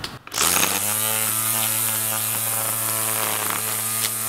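Wild Badger 20-volt brushless cordless string trimmer spinning up about half a second in, then running at a steady speed with an even hum and whirr as its line edges grass along a concrete sidewalk.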